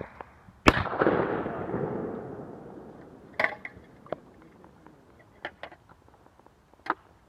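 A 12-gauge shotgun fires once at a clay target about a second in, the blast echoing and dying away over a couple of seconds. A few sharp clicks and knocks follow, and a fainter bang with its own dying echo comes at the very end.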